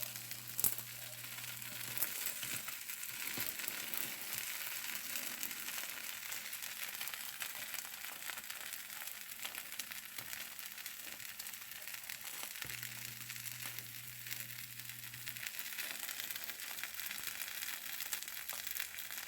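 Omelette sizzling in a frying pan: a steady crackling hiss.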